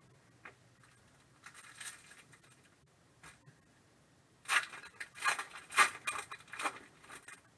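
Foil wrapper of a Donruss Optic trading-card pack being torn open: a faint crinkle about a second and a half in, then loud crackling of the foil in quick bursts from about four and a half seconds in.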